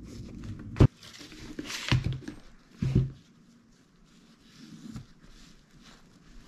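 A cloth rubbing over the leather of a Red Wing work boot as leather conditioner is wiped in. Three knocks come about a second apart in the first three seconds as the boot is handled, followed by softer rubbing.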